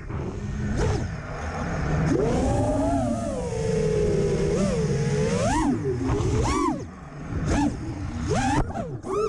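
FPV quadcopter's four brushless motors and propellers whining, the pitch rising and falling with every throttle change, with several quick up-and-down swoops in the last few seconds. The quad is a 2400KV freestyle build on T-Motor F40 III motors.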